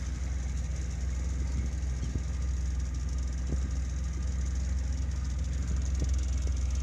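A small boat's motor running steadily under way, a low even drone with a hiss of wind and water over it and a few faint knocks.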